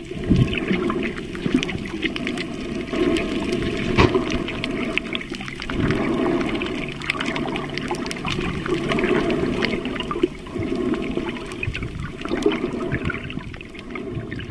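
Water rushing and bubbling around an underwater camera held by a snorkeler, swelling and easing every few seconds, with scattered sharp clicks.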